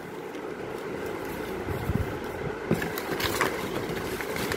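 Cardboard shoe box and its paper packaging being handled, with crinkling and light knocks that grow busier in the second half, over a steady low hum.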